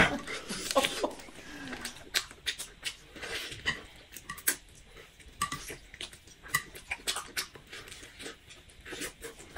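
Close-up eating sounds: wet smacking, sucking and chewing as meat is gnawed off a bone held in the hands, with irregular small clicks and crunches.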